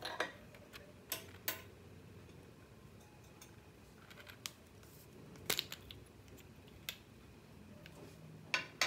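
Scattered sharp clicks and taps of small plastic makeup containers and caps being handled by hand, a few at the start, a pair a little after a second in, two close together about halfway and another pair near the end.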